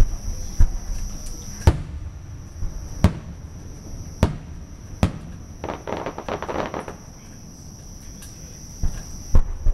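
Aerial fireworks shells bursting overhead: sharp booms about a second apart, then a stretch of dense crackling about six seconds in, and two more bangs near the end.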